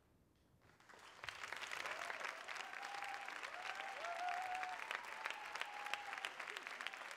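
Audience applauding: clapping starts about a second in and quickly swells to a full, steady round, with a few voices calling out in the middle.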